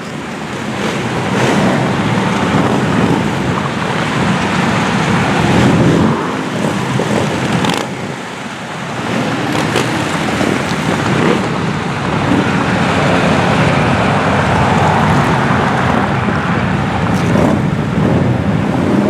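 Steady highway traffic noise from a long procession of motorcycles and other vehicles passing by, rising and falling slightly as groups go past.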